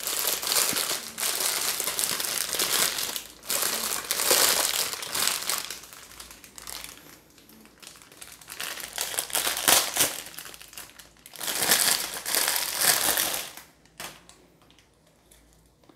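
Clear plastic packing bag crinkling in bursts as a twist-grip throttle and its wiring are worked out of it by hand; the crinkling dies down over the last couple of seconds.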